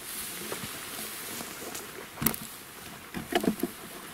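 Footsteps swishing through tall grass, with a sharp rustle about two seconds in and a quick cluster of rustles and knocks near the end.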